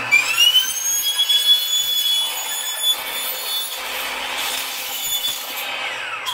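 Sliding miter saw cutting through a soffit panel. The blade's whine climbs at the start as it spins up, holds steady and high-pitched with a rasping cut, then falls away near the end as the blade winds down.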